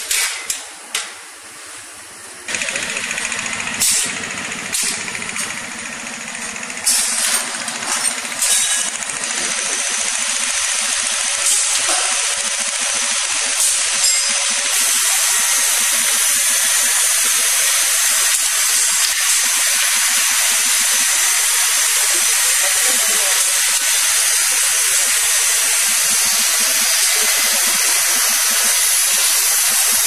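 Compressed air hissing from a pneumatic robot's valves and tubing. Several short, sharp blasts of air come in the first nine seconds, then a continuous hiss builds and holds loud and steady.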